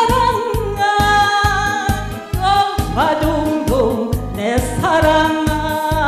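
Instrumental break of a Korean trot song's backing track: a steady beat under a wavering, held melody line.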